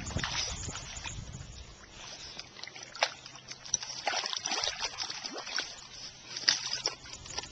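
A dog sloshing and splashing in a shallow muddy puddle as it paws and digs, with irregular small splashes and trickles of water.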